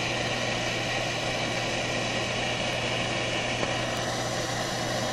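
Steady hiss of a hand torch's flame heating a copper pipe joint for soldering, over a steady low hum.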